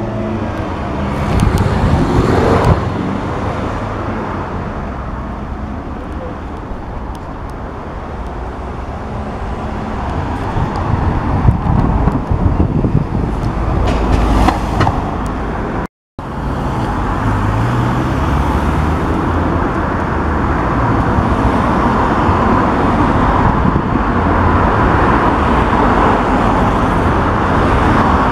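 A car engine running, heard close at its twin exhaust pipes and rising in revs a few times. After a break, a car engine and road noise grow steadily louder as a car approaches.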